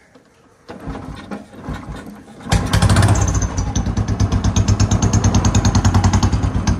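Royal Enfield Bullet's single-cylinder engine cranking unevenly for about two seconds, then catching and settling into a loud, even idling thump. It is running through a freshly fitted louder aftermarket silencer.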